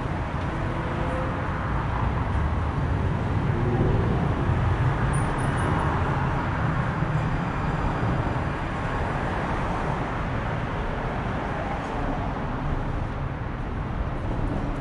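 Steady street traffic noise, growing louder for a few seconds in the middle as vehicles go by.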